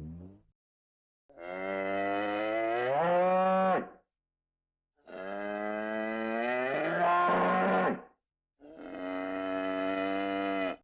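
Cow mooing: three long moos, the first two rising in pitch toward their ends.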